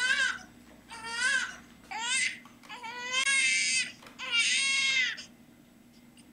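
Infant crying: three short wails, then two longer drawn-out ones, stopping about five seconds in.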